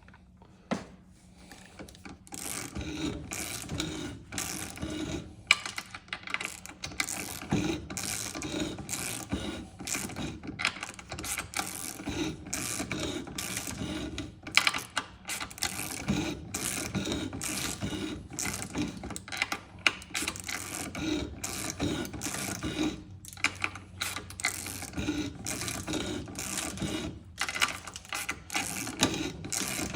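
Long-handled 3/8 ratchet clicking in repeated short strokes as it turns a hand cutting tool around a supercharger snout, with the cutter scraping the metal as it machines.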